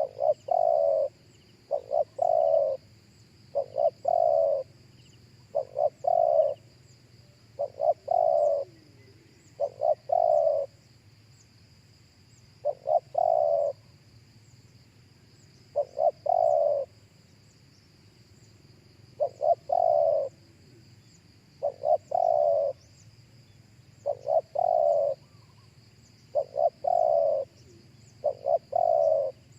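Spotted dove cooing repeatedly in short phrases, each a quick note or two followed by a longer coo, about every one to three seconds, with a faint steady high-pitched drone in the background.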